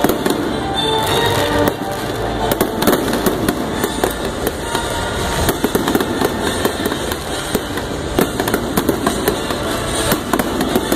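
Aerial fireworks: a dense, unbroken barrage of shells bursting and crackling, with many sharp bangs every second.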